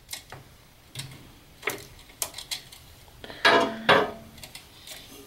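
Scattered light clicks and rattles of wires with crimped connector ends being handled against a sheet-metal electrical enclosure, with a denser clatter about three and a half seconds in.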